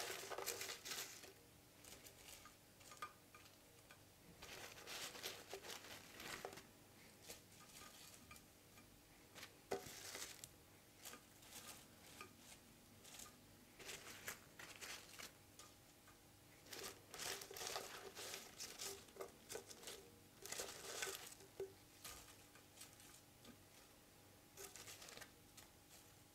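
Crisp fried potato fries being laid by hand into a glass baking dish: soft rustling in short clusters every few seconds, with the odd light click, the sharpest about ten seconds in.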